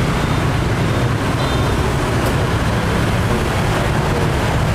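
Steady, loud street traffic noise, a constant low rumble of passing vehicles.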